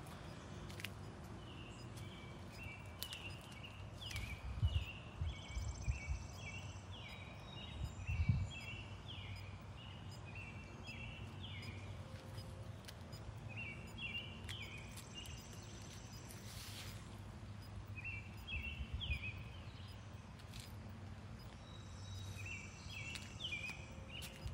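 A songbird singing outdoors in several bouts of quick, repeated high falling notes, over a steady low rumble with a few louder low bumps on the microphone.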